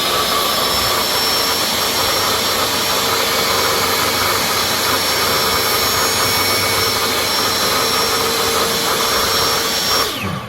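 Table saw running at full speed, a steady whine over a broad rushing noise, while a small piece of wood is cross-cut. About ten seconds in, the saw is switched off and its whine falls away as the blade coasts down.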